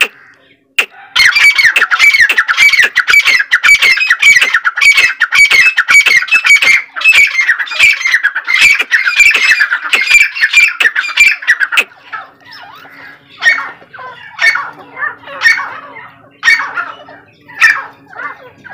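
Grey francolins calling: a fast, harsh run of repeated calls, about four a second, that breaks off about twelve seconds in. Slower, spaced calls follow, about one a second.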